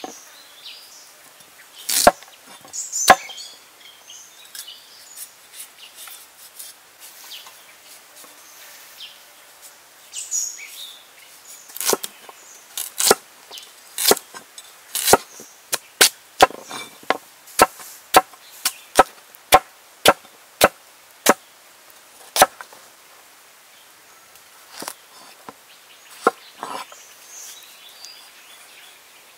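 A large cleaver-like knife chopping a carrot into rounds on a thick wooden table, each stroke a sharp knock of the blade on the wood. After two loud strokes near the start, they come in a steady run of about two a second through the middle, with a few scattered strokes near the end.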